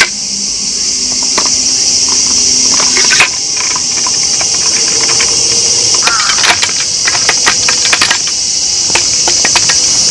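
A loud, steady chorus of insects, with scattered clicks and knocks from objects being handled, a sharp one about three seconds in and a cluster in the second half.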